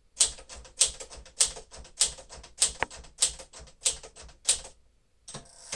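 1954 Smith-Corona Silent-Super manual typewriter being typed with the caps lock engaged: its typebars strike the platen in an even rhythm, a sharp strike about every 0.6 s with lighter key and mechanism clicks between. The typing pauses briefly near the end, then a few more strikes follow.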